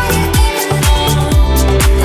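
Background music: electronic dance music with a steady kick-drum beat, about four beats a second.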